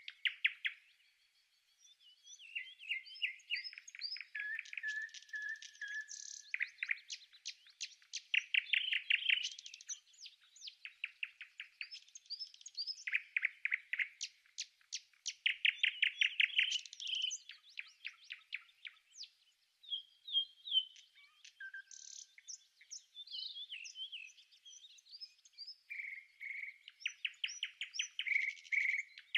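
Small songbirds calling and singing: bursts of rapid, high chirps and trills, one after another, with short gaps between them.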